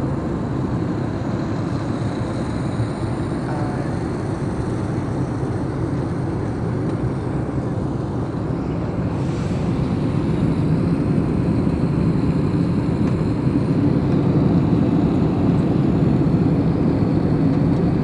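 Steady low roar of a passenger jet heard inside the cabin: engine and airflow noise, growing slightly louder in the second half.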